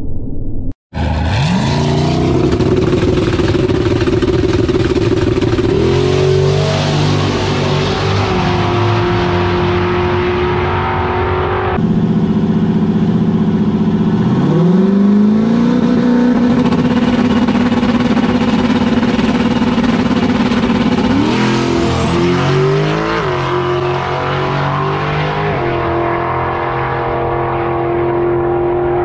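Turbocharged LS V8 pickup trucks at full throttle on drag-strip passes. The engine pitch climbs, holds and shifts several times as they run through the gears, in two runs split by a cut about twelve seconds in.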